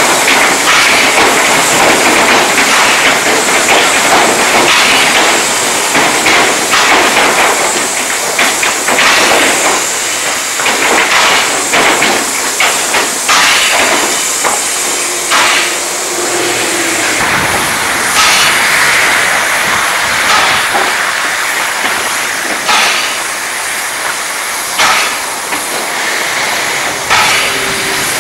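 Steam locomotives hissing steadily, with irregular sharp metallic clanks and knocks.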